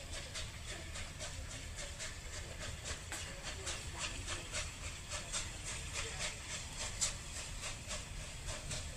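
Bulleid West Country class steam locomotive working slowly into the station, its exhaust chuffing evenly at about three beats a second over a steady hiss of steam. A low rumble of wind on the microphone runs underneath.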